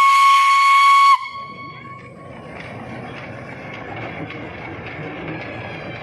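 Darjeeling toy train's whistle blowing one long, steady, loud note that cuts off about a second in. It is followed by the lower, steady rumble and light clatter of the train running on the track.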